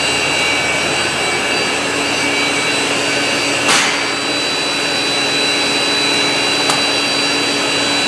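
Guillotine shear cross-cutting unit for rigid flooring boards running, with a blade and counter-blade. A steady mechanical noise carries several steady whining tones. A little under halfway through there is one sharp clack, and a fainter click comes later.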